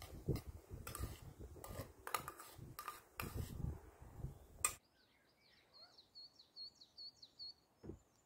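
A spoon clinks and scrapes in a small metal pot as bulgur is stirred over a small wood-burning stove, with low rumbling noise behind it. After a cut, a small bird chirps a quick series of short, high notes, about four a second.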